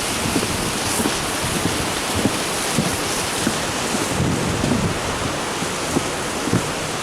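Strong wind rushing steadily and buffeting the microphone in frequent low thumps.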